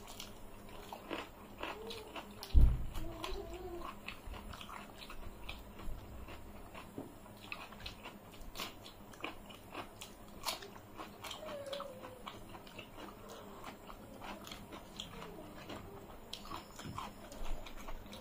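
Close-miked eating: people biting and chewing raw cucumber and onion, with many crisp crunches and wet mouth sounds, and fingers working rice on metal plates. One heavy thump about two and a half seconds in.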